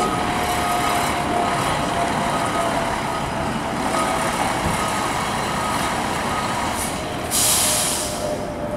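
Fire engine backing into its bay: the diesel engine runs steadily while a reversing beeper sounds in short repeated beeps. About seven seconds in comes one loud hiss of released air, typical of the air brakes being set as the truck stops.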